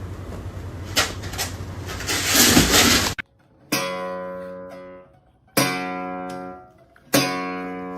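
Acoustic guitar chords, struck one at a time and left to ring and die away, three strikes about one and a half seconds apart. Before them comes about three seconds of noisy background with a low hum and a couple of clicks, which then cuts off.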